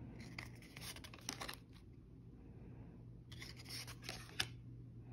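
Yu-Gi-Oh trading cards sliding and rubbing against each other as they are flipped through by hand. There are two spells of papery rustling, each about a second long, and the second ends in a sharp card snap.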